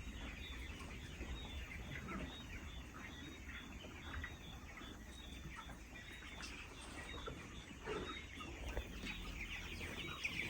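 A flock of chickens calling, with many short clucks and peeps overlapping.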